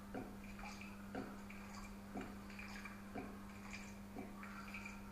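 Faint, regular ticking about once a second, with lighter clicks in between, over a steady low hum.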